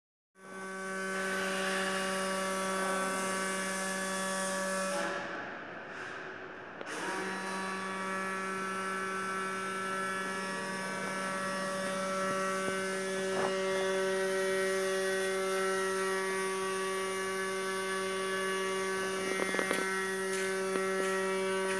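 Steady machine hum with a clear pitch. It cuts out about five seconds in and starts again about two seconds later, with a few faint clicks later on.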